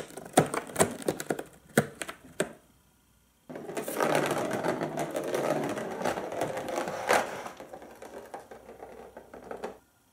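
Turbo Scratcher cat toy being played with by a cat: a quick run of sharp plastic clicks and rattles, then, after a short silence, several seconds of dense rasping rumble from the ball and track and the cardboard scratch pad that fades out near the end.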